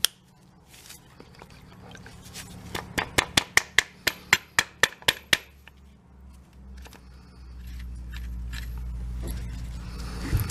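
Workbench handling noise: a quick run of about a dozen sharp clicks, four or five a second, lasting under three seconds. A low steady rumble follows near the end.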